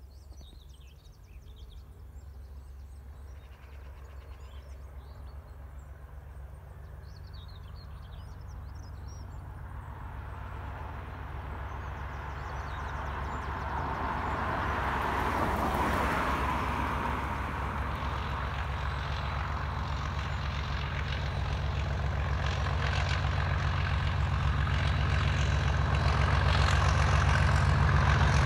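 Class 37 diesel locomotive (97304) with its English Electric V12 engine working under power, a deep steady drone growing steadily louder as the train approaches. Small birds chirp faintly during the first third.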